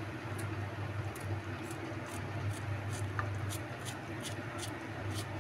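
A kitchen knife slicing cucumber pieces onto a ceramic plate, the blade ticking against the plate in a run of short, sharp clicks about two to three times a second, over a steady low hum.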